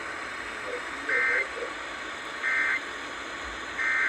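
Emergency Alert System SAME digital data bursts from a weather radio: three short warbling squawks about a second and a half apart over steady radio hiss. Their shortness and place right after the warning text fit the end-of-message signal that closes a severe thunderstorm warning.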